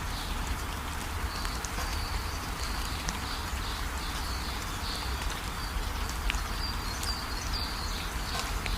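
Steady rain with a low rumble. Over it, from about a second in, come high, rapidly repeated chirping calls from an animal.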